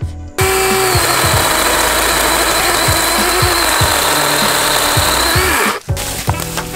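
DeWalt cordless electric chainsaw running flat out and cutting through a thin woody stem of an invasive shrub. Its high motor whine stays steady through the cut and rises briefly just before the sound cuts off suddenly, about six seconds in.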